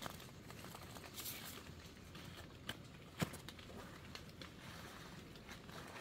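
Handfuls of small round fruits dropped onto a pile on dry leaf litter: soft knocks as they land and hit one another, with rustling of leaves and undergrowth, and one sharper knock a little past the middle.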